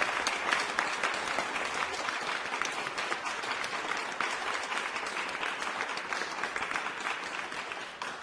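Applause from many hands clapping, slowly dying down.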